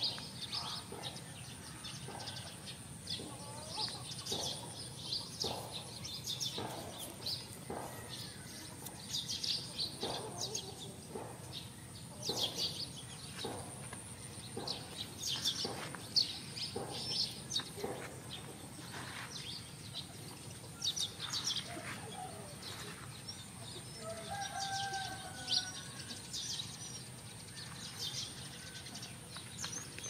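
Chickens clucking and small birds chirping in many short, scattered calls, with a couple of longer pitched calls near the end.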